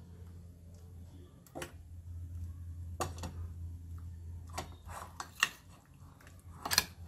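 A metal spoon clicking and scraping against a steel bowl and a plate as thick coriander chutney is spooned onto boiled potato pieces: a few separate clinks and scrapes over a low steady hum.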